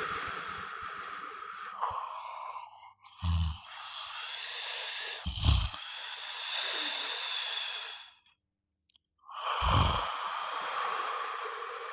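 A person snoring: long, noisy breaths several seconds each, with a short low rattling snort about three, five and a half and ten seconds in, and a brief pause between breaths a little after eight seconds.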